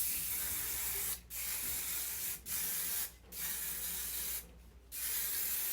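Aerosol hairspray can spraying onto hair in about five bursts of a second or so, with short breaks between them.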